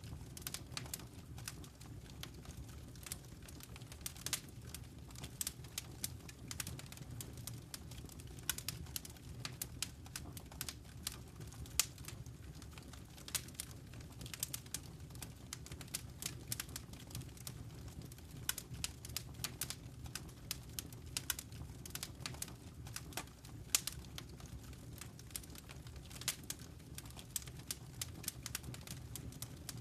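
Wood fire crackling in a fireplace: frequent irregular sharp pops and snaps over a low, steady rumble of burning.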